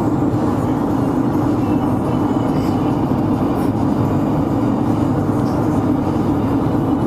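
Steady road and engine noise inside the cabin of a moving minivan.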